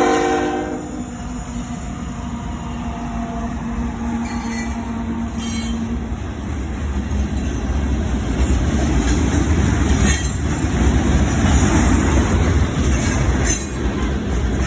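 Train running on rails, a low rumble that builds and grows louder from about six seconds in. A brief chord of pitched tones fades out in the first second.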